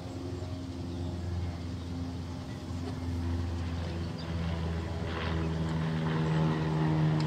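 An engine droning steadily in the background, its pitch shifting about four to five seconds in and getting louder toward the end.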